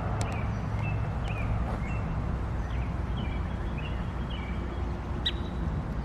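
Small birds chirping again and again over a steady low outdoor rumble, with one louder chirp about five seconds in.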